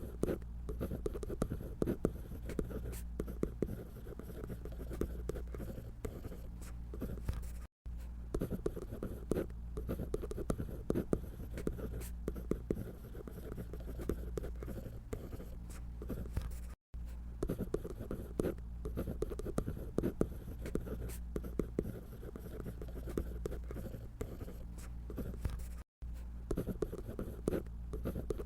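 Drawing on paper: quick scratchy strokes of a drawing tool, close up and continuous, dropping out completely for a split second three times.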